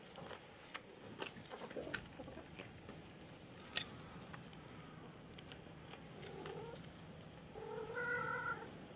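A cat meowing twice: a short call, then a longer, steady one near the end. Underneath are scattered light ticks, and one sharp click comes a little before halfway.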